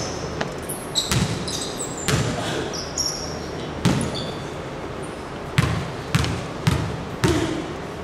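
A basketball bouncing on a hardwood gym floor, each bounce echoing in the hall: a few scattered bounces, then four even dribbles about half a second apart, typical of a free-throw shooter's pre-shot routine. Short high sneaker squeaks sound in the first three seconds.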